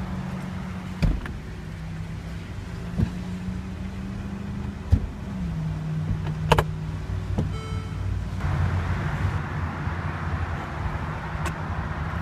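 Electro-hydraulic power mechanism of a Mercedes-Benz SL550's folding hardtop and trunk, humming steadily with a few clicks. Its pitch drops about five seconds in, and a short run of beeps sounds near eight seconds.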